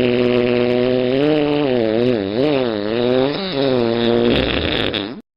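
Long, drawn-out fart sound effect: a low buzzing tone that wavers up and down in pitch through the middle, turns rougher near the end and cuts off suddenly.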